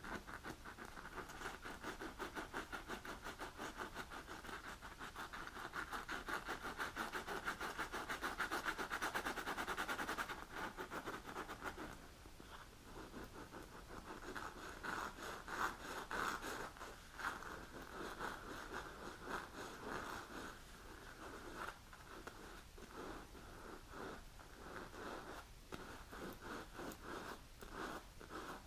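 Long natural fingernails scratching across a black leather-covered pad. For the first ten seconds the scratching is rapid and continuous. After that it drops to quieter, separate, irregular strokes.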